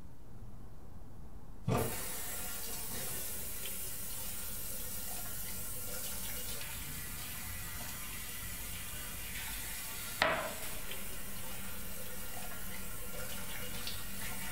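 Water running from a tap into a sink as hands wash under the stream, starting suddenly about two seconds in as a steady hiss. A sharp knock comes about ten seconds in.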